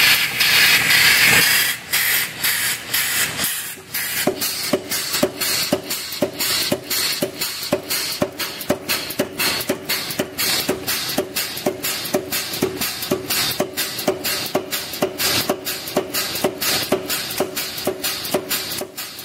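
Blu Max 110 pneumatic air hammer with a 110 lb ram. It opens with a loud burst of air hiss, then the ram strikes a steel bar on the die in a steady run of repeated blows, about two to three a second, each with a short metallic ring.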